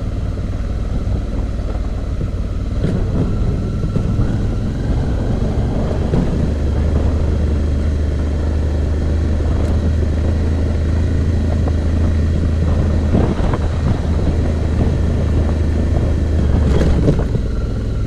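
Suzuki V-Strom motorcycle engine running steadily while riding on a rough dirt road, with wind noise on the microphone. A few brief knocks come about 3 s, 4 s, 13 s and 17 s in.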